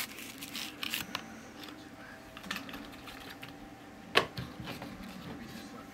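Phone-case packaging being handled and opened: scattered light clicks and rustles of cardboard and plastic, with a sharper knock a little after four seconds in.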